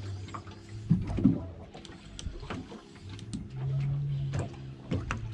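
Boat engine idling with a low steady hum that fades and swells, under scattered clicks and knocks on the deck and tackle, with a louder burst about a second in.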